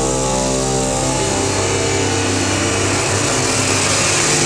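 Loud experimental electronic noise music played live: a dense, steady drone of many layered tones under a bright hiss. Its low end turns rougher and more broken about a second in.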